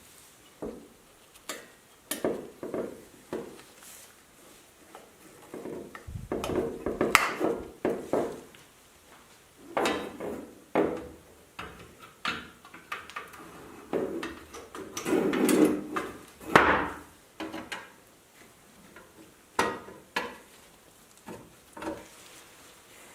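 Irregular clacks, knocks and scraping of hard parts being handled, with longer spells of clattering about six and fifteen seconds in.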